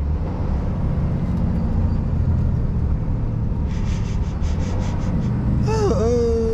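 Scania R450 lorry's 13-litre straight-six engine and road noise, a steady low rumble as it drives slowly under a heavy load. About four seconds in comes a short run of quick soft ticks, and near the end a pitched tone swoops in and then holds, slowly falling.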